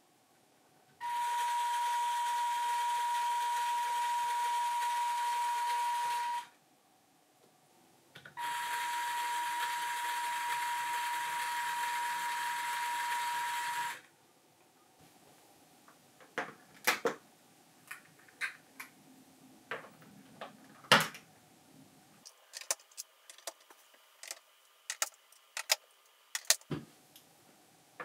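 Lego electric motor and gear train turning a Reuleaux-triangle rotor: a steady mechanical whirr with a high whine, running for about five seconds, stopping briefly, then running about five seconds more. Then a scatter of sharp plastic clicks and knocks as Lego pillars are set onto the baseplate.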